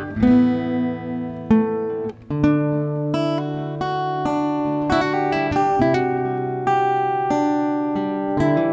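Background music: an acoustic guitar picking notes and chords in a steady, unhurried rhythm.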